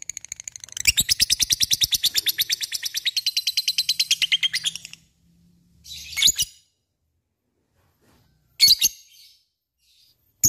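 Lovebird chattering in a long, rapid trill (ngekek), about ten sharp high notes a second for some four seconds, followed by two short separate calls.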